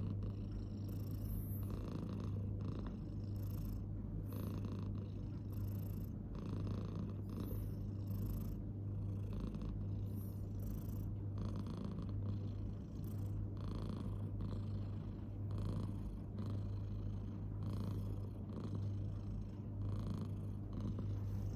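Tabby cat purring steadily, a low continuous purr that swells in a regular rhythm about every second or so.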